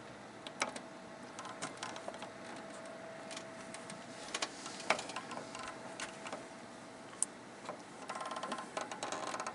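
Fishing reel being cranked while fighting a hooked channel catfish: scattered sharp clicks from the reel, turning to a fast, even run of ticks near the end, over a faint steady tone.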